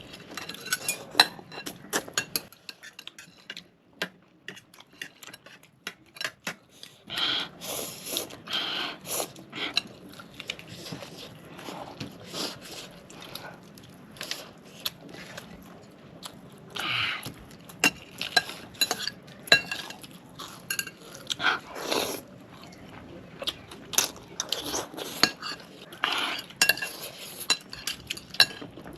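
Cutlery tapping and clinking against dishes in irregular sharp clicks, mixed with the chewing and eating sounds of a meal of fried chicken and noodles.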